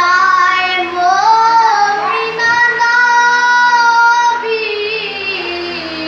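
A boy singing a manqabat, a devotional poem in praise of Imam Ali, in a solo voice with ornamented turns and a long held note near the middle.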